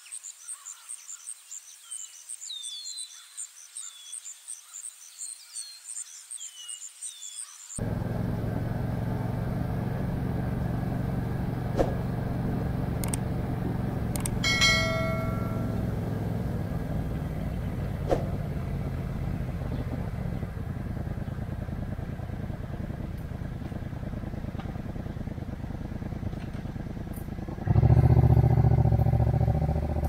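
Insects trilling in a fast, even pulse with a few short, falling bird chirps. After about eight seconds this gives way to a motorcycle ride: the engine running under steady wind and road noise, louder near the end.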